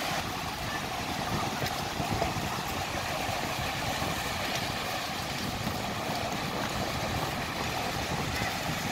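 Small surf breaking and washing up on a sandy shore, a steady hiss, with wind rumbling on the microphone.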